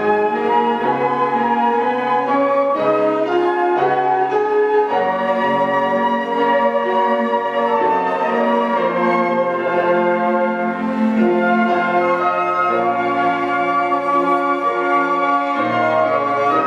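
A flute ensemble playing an arrangement of a Korean art song: several flutes hold overlapping sustained notes in chords, with a lower line moving underneath.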